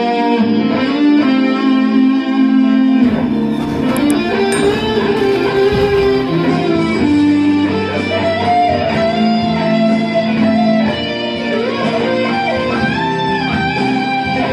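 Les Paul-style electric guitar played as a melodic lead, with sustained notes that bend up and down in pitch.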